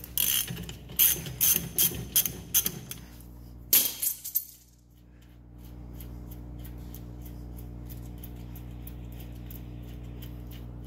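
Ratchet wrench with a 27 mm socket loosening the front spindle nut on a drum-brake hub: a quick run of metallic clicks and clinks for about four seconds. After that only a steady low hum remains.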